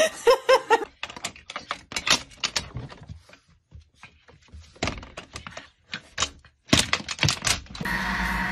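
A brief laugh at the start, then a run of quick, irregular clicks and knocks lasting several seconds; near the end a steady hum sets in.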